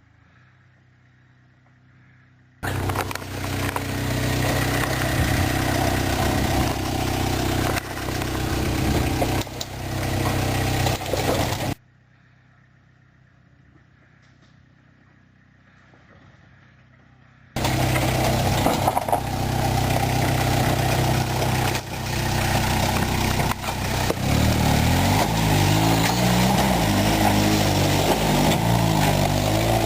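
Off-road 4x4 engine running hard under load, with a loud rushing noise. It starts suddenly, cuts out abruptly for several seconds with only a faint low hum left, then comes back. Over the last few seconds the revs step up and down.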